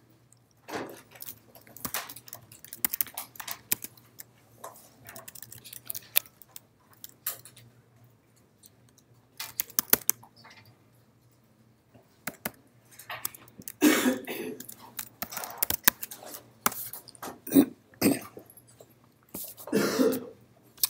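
Typing on a computer keyboard: an irregular patter of key clicks, with a few brief voice sounds about two-thirds of the way in and near the end.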